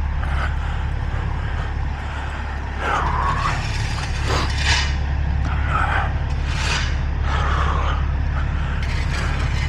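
Semi truck's diesel engine idling steadily, with several short scrapes and rattles of equipment being handled over it.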